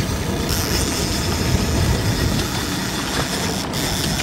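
Boat's outboard motor running with water rushing past the hull, a steady low rumble, joined about half a second in by a steady high hiss.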